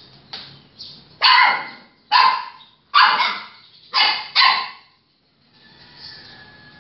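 A dog barking five times, about a second apart, with the last two close together.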